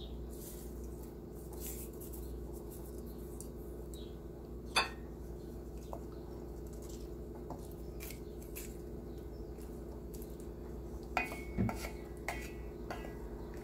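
Wooden spatula in a stainless steel pot of fish curry, with occasional knocks and clinks against the pot: a sharp one about five seconds in and a small cluster near the end, over a steady low hum.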